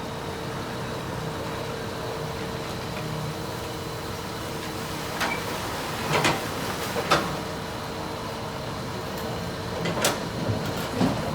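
Excavator engine running steadily, with several short metallic knocks, the loudest about seven seconds in.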